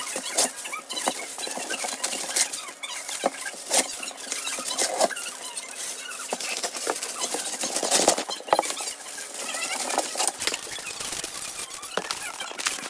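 Aluminium foil being pulled off the roll, torn and crinkled as sheets are spread out, a dense crackling rustle full of sharp clicks.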